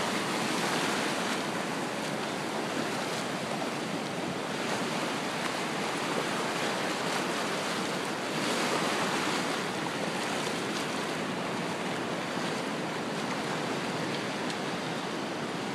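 Shallow surf washing over a low-tide flat of rocks and seaweed: a steady rushing wash that swells briefly a little past halfway.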